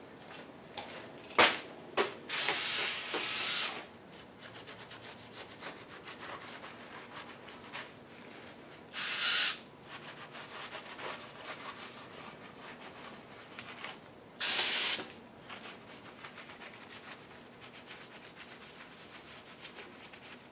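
Aerosol cleaner sprayed onto an engine block's gasket surface in three short hisses, about two, nine and fourteen seconds in, the first the longest, with a rag rubbing the surface clean in between.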